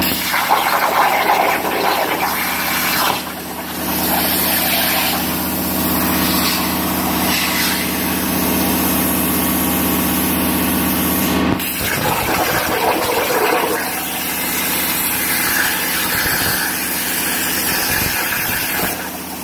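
CNC plasma cutter cutting 5 mm mild steel: a loud, steady hiss from the arc and air jet over a steady machine hum. The hum changes about halfway through, and the hiss dips briefly twice.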